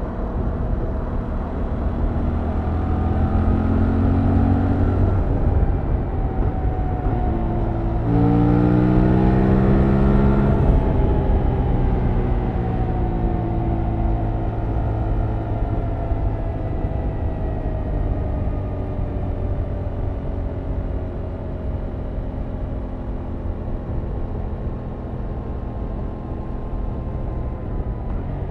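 2021 Yamaha MT-07's 689 cc parallel-twin engine through its stock exhaust, revs rising under acceleration, dropping at a gear change, then pulling hard and loudest about eight seconds in. The revs then fall slowly for a long stretch as the bike rolls off, picking up again briefly near the end.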